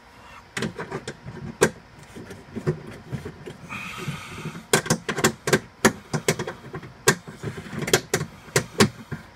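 Sharp metallic clicks and knocks of a ratcheting wrench working a tight bolt loose inside a car door. They come sparsely at first, then about two a second from about five seconds in, with a brief scraping hiss around four seconds in.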